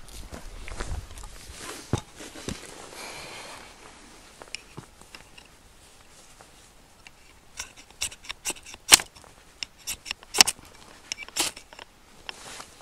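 A series of sharp clicks and knocks, as of small objects being handled, with a short rustle about three seconds in. The clicks come thickly and loudest in the second half.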